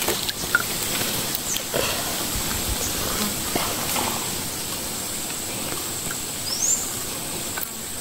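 Steady outdoor background hiss with a constant high-pitched tone over it, a few faint clicks, and one short rising chirp about six and a half seconds in.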